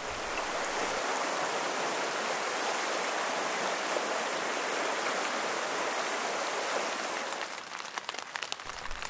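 Fast mountain creek rushing steadily over rocks. About seven and a half seconds in it gives way to rain falling on a tent, heard as scattered drops tapping on the fabric.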